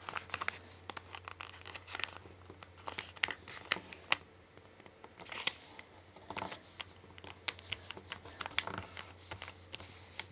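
A 15 cm sheet of origami paper being folded and creased by hand: irregular crisp crinkles and rustles as the paper is bent and fingers press the folds flat.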